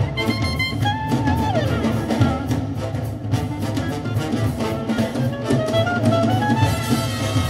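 Big-band swing jazz with brass and a driving drum kit, played very loud through a car audio system in the car's cabin.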